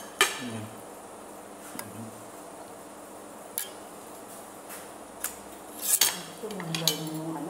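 Knife and fork clinking against a ceramic dinner plate while eating: sharp single clinks every second or two, with several close together near the end.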